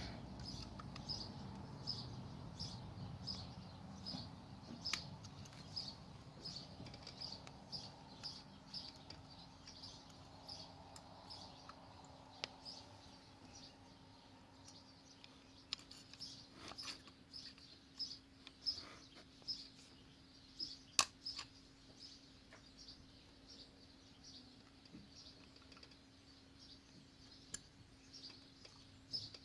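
A bird repeating a short, high chirp about every two-thirds of a second, over scattered sharp clicks and taps from hand work on a motorcycle's rear brake caliper as the pad pins are pushed in.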